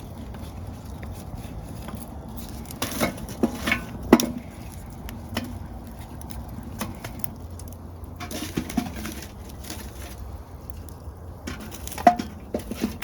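Scattered clinks and knocks of cooking utensils against a pot on a wood stove, in small clusters: several around three to four seconds in, a couple near nine seconds, and one more near the end.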